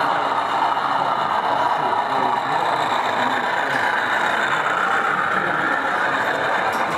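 0 gauge model diesel multiple unit running past on the layout, a steady engine-like running sound that grows a little stronger in the middle as the coaches pass close.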